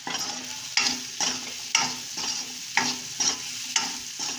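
A spatula scrapes and stirs boiled potato pieces with onion and capsicum around a kadhai, in quick regular strokes about two a second. A light sizzle of frying runs underneath.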